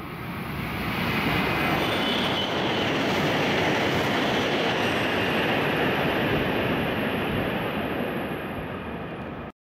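Kyushu Shinkansen bullet train passing a platform without stopping at about 260 km/h: a dense rush of wind and wheel-on-rail noise. It swells within the first second, holds steady, then eases off and cuts off abruptly near the end.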